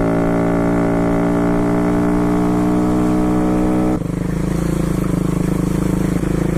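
Dirt bike engine running at steady revs. About four seconds in it cuts abruptly to a lower, rougher running with a rapid pulse.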